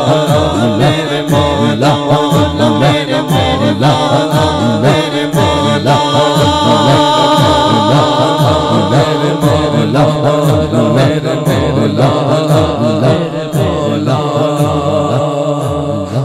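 Male voice singing a naat, a devotional Urdu song, with long gliding melismatic lines through a microphone and PA, over a low pulsing rhythm that repeats about once a second.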